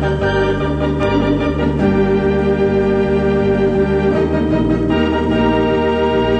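Organ music: sustained chords over a low bass line that steps about twice a second.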